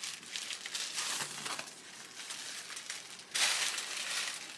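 Tissue-paper wrapping rustling and crinkling as a package is untied and handled, with dense small crackles; it gets louder about three and a half seconds in as the paper is pulled open.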